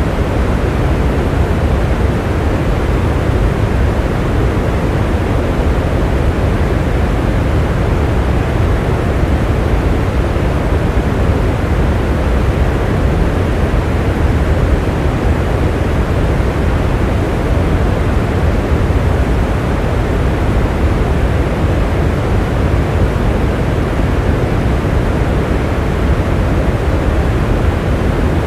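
Steady rain: a deep, even rushing noise that never changes, with no separate drops or thunder standing out.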